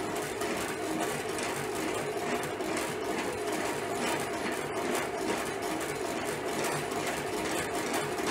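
Motor-driven Dadant radial honey extractor spinning loaded frames: a steady motor whir with a regular low pulsing beat. The speed is being raised gradually as the frames unload their honey.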